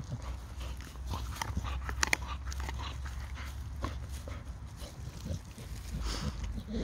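English Staffordshire Bull Terrier chewing a wooden stick: irregular crunching and cracking of wood between its teeth, with the sharpest cracks about two seconds in.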